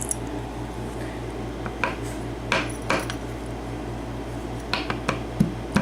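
Small metal clicks and clinks of lock pins and cylinder parts being handled, several short sharp ticks spread irregularly through, over a steady low hum.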